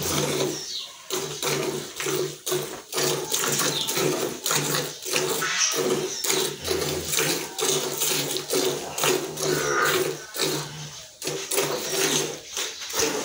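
Desi cow being milked by hand into a pail: rhythmic squirts of milk striking the pail, about two a second.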